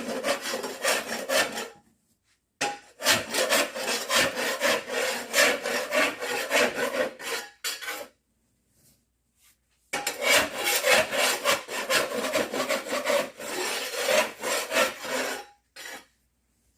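A hand scraper scraping glued carpet underlayment off a concrete floor in quick, repeated rasping strokes. The strokes come in three runs, with two short breaks between them.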